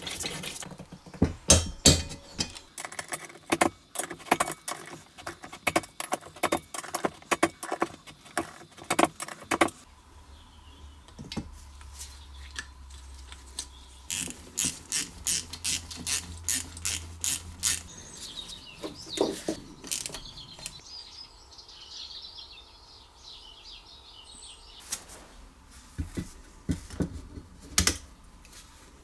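Socket ratchet clicking rapidly in quick runs as the head bolts of a small Briggs & Stratton engine are tightened. After a pause, lighter metallic clicks and taps follow, with a run of evenly spaced clicks partway through.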